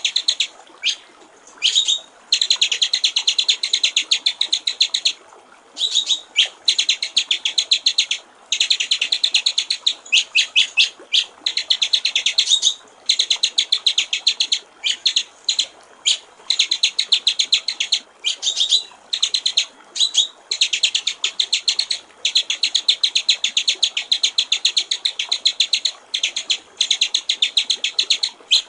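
White-rumped shama (murai batu) singing long runs of fast, rapid-fire repeated high notes, each run broken by a brief pause, over a faint steady trickle of water.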